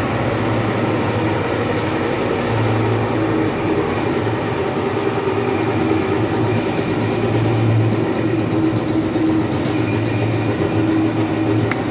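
Heavy-drum carpet-wringing centrifuge spinning with a steady mechanical rumble, a low hum that swells and fades every couple of seconds.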